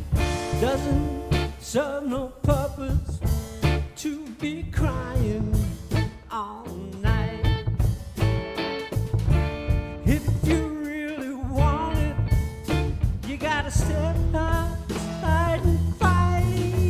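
Blues band playing an instrumental passage: electric guitar lead with bending, wavering notes over upright double bass and drums.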